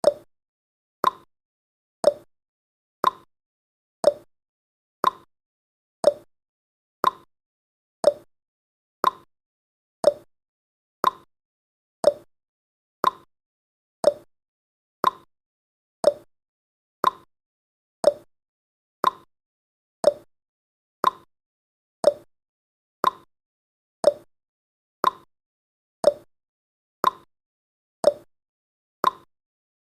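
Ticking clock sound effect: a short tick once every second, alternating between a higher and a lower click in a steady tick-tock.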